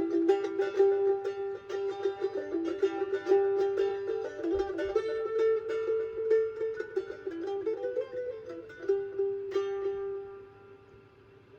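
Music played on a plucked string instrument, quick picked notes over a held melody, fading out about ten seconds in.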